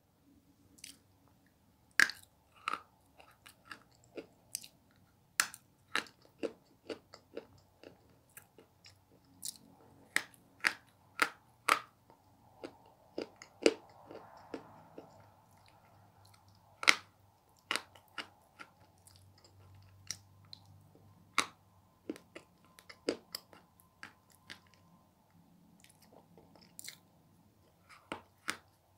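Sticks of coloured chalk being bitten and chewed: a long run of sharp, dry crunches at irregular intervals, with softer chewing between them.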